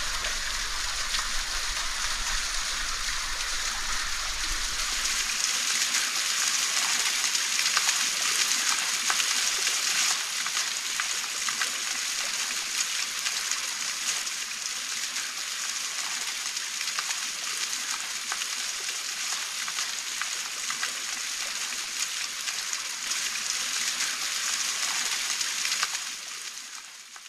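Water trickling and dripping down a canyon wall into a pool: a steady splashing patter of many small drops, fading out near the end.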